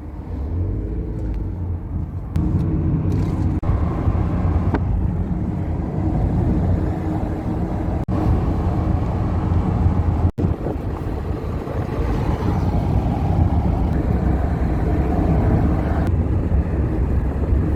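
Steady low vehicle rumble, broken by two brief dropouts about eight and ten seconds in.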